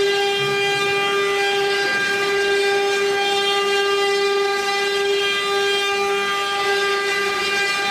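Spindle motors of a 12-spindle CNC cylinder-engraving router running at speed: a loud, steady whine with many evenly spaced overtones that holds its pitch.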